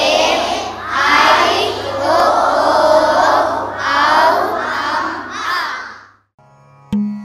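A group of young children chanting together in unison, in phrases of a second or two with short breaks, stopping about six seconds in. After a brief pause, a plucked string instrument sounds two notes near the end.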